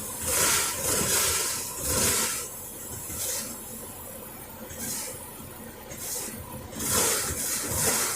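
Water rushing through a camper's supply lines into a small electric water heater as the system fills, heard as a hiss that surges and fades every second or so.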